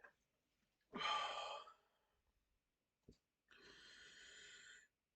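A man breathing heavily, catching his breath after chugging soda: a loud breath about a second in, a small click near three seconds, then a longer, quieter breath.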